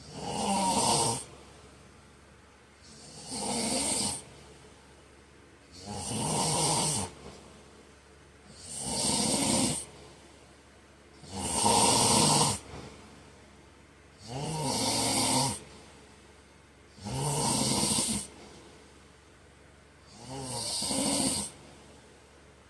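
A man snoring in his sleep: eight loud snores, about one every three seconds, in a steady rhythm with quiet breaths between them.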